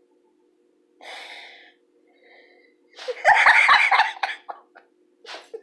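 A person's voice: a breathy gasp about a second in, then a louder vocal outburst about three seconds in, with a few low thumps on the microphone.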